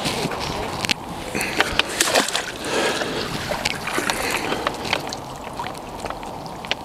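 Water splashing and sloshing, with many scattered sharp clicks and knocks.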